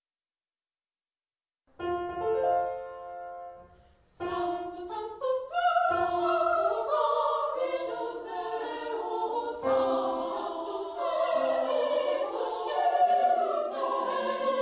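Classical choral music: after a silent start, a held chord sounds about two seconds in and fades away, then a choir sings with accompaniment from about four seconds in.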